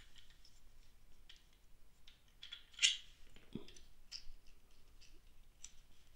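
Plastic parts of a GoPro suction cup mount being handled and worked loose: faint scattered clicks and scrapes, with one sharper click about three seconds in and a soft knock just after.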